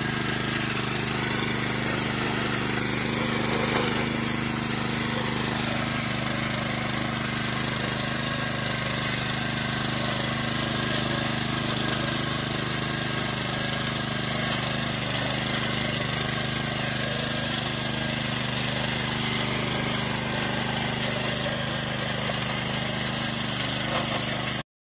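Small air-cooled engine of a walk-behind power weeder (rotary tiller) running steadily as its tines churn through soil. The sound cuts off suddenly near the end.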